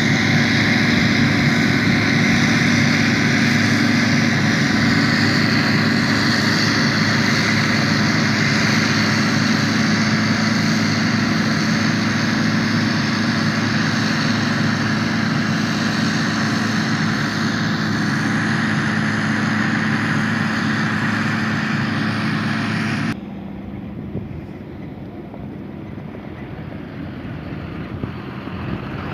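Self-propelled forage harvester chopping maize with a tractor and trailer running alongside: heavy engines and the chopper drone steadily up close. About 23 seconds in it drops suddenly to a quieter, more distant drone.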